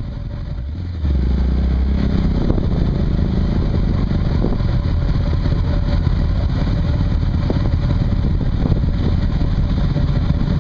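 Motorcycle engines running at low speed as a group of sport bikes rolls off, with a deep steady rumble that gets louder about a second in.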